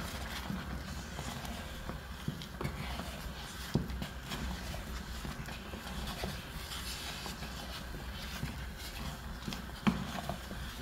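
Wooden cooking stick stirring and pressing stiff ugali (maize-flour dough) in an aluminium pot, with irregular knocks and scrapes of the stick against the pot over a low steady hum; a sharper knock comes near the end.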